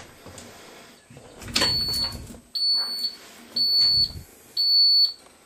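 Bus dashboard warning buzzer beeping: a high, steady-pitched beep repeating about once a second, starting about a second and a half in, as the ignition is switched on before the Cummins 6BT diesel is cranked.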